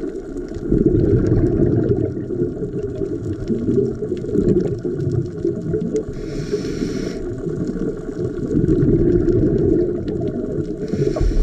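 Scuba diver breathing through a regulator underwater: a low churning rumble of exhaled bubbles, with a short hiss of inhalation about six seconds in and again near the end.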